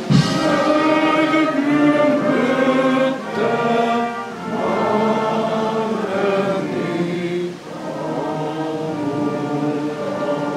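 A choir singing a slow song in long-held notes, with a brief thump at the very start.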